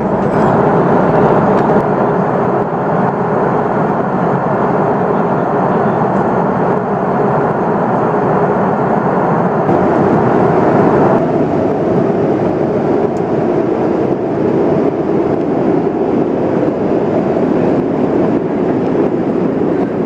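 Steady jet engine and airflow noise heard from inside an Airbus A330-300's cabin. About halfway through, the higher part of the noise drops away and a lower rumble is left.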